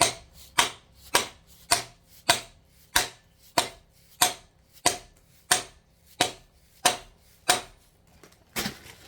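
Plastic hammer striking the old sprocket held against a new timing-chain sprocket, driving it onto an LS 5.3 V8's shaft: sharp, evenly spaced blows about one and a half a second, over a dozen in all, the last ones near the end coming less evenly.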